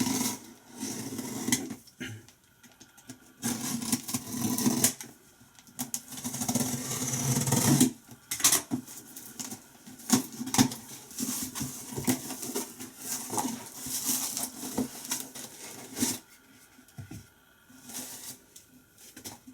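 A taped cardboard parcel being opened by hand: packing tape torn off and cardboard rustling and scraping, in irregular bursts with short pauses between.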